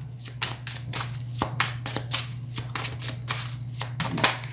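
A deck of oracle cards being shuffled by hand: a quick, irregular run of soft card clicks and slaps, over a steady low hum.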